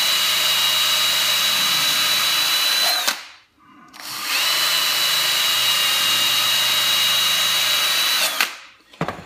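Electric drill spinning an abrasive sanding wheel against a stainless steel ball guide, regraining its brushed finish: a steady high whine over a grinding hiss. It runs about three seconds, stops briefly, runs again for about four seconds and stops, followed by a light knock.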